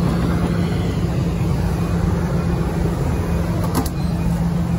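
Large hydraulic excavator's diesel engine running steadily close by, a constant low hum over a rumble. Two faint brief clicks come near the end.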